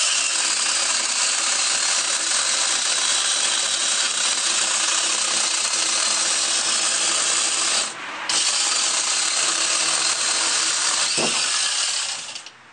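Cordless angle grinder converted into a small chainsaw, its chain cutting through a log with a steady whir. The cut drops out briefly about eight seconds in, then runs on and stops near the end. The grinder is running on a weak, uncharged battery.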